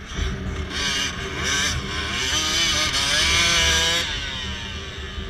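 Enduro dirt-bike engine revving hard under load up a steep loose climb, its pitch rising over a couple of seconds. It cuts off sharply about four seconds in, leaving a quieter engine running.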